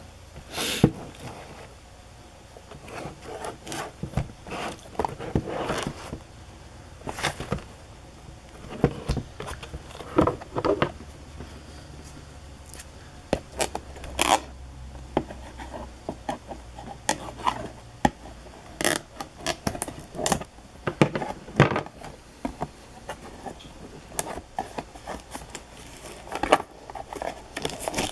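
A cardboard trading-card box being handled on a table: irregular knocks, taps and scrapes as it is set down and turned, with a few sharper knocks scattered through.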